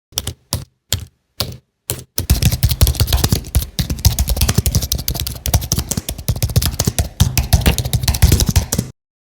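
Typing on a computer keyboard: a few separate keystrokes, then fast, continuous typing that stops abruptly near the end.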